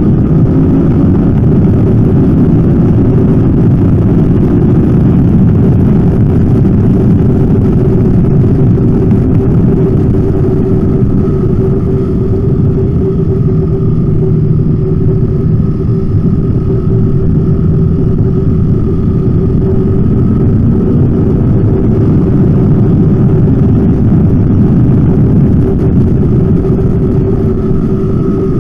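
Motorcycle engine running under load at a fairly steady pitch at around 90–100 km/h, mixed with the rush of wind over a handlebar-mounted camera microphone.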